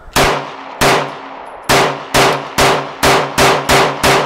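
Glock 19 9mm pistol fired in a rapid string: nine shots in about four seconds, the pace quickening after the first three.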